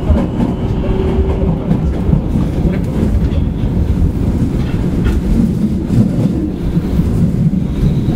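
Osaka Midosuji Line 10 series subway train with IGBT inverter drive, running between stations and heard from on board: a steady loud rumble of wheels on rail with a few faint clicks.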